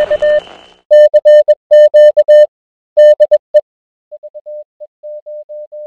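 Morse code sent as a single steady beep tone, keyed in short and long elements. It is loud in quick groups for the first few seconds, then, after a brief pause, carries on more softly.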